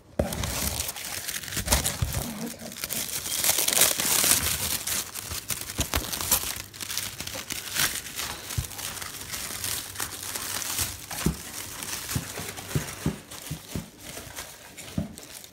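Brown crinkled kraft-paper packing rustling and crackling continuously as hands dig through it in a cardboard box, with sharp crinkles and crackles throughout.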